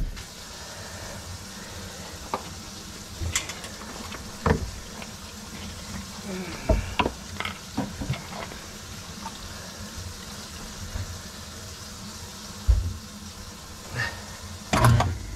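Kitchen faucet running steadily into the sink above a newly installed garbage disposal, filling the basin to test the new drain connections for leaks; heard from the cabinet below. A few knocks and clunks sound over it, with a louder cluster near the end.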